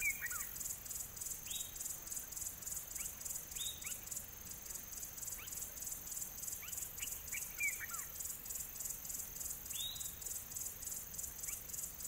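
A steady, pulsing high-pitched insect chirring, with a bird's short whistled calls sliding downward in pitch every couple of seconds.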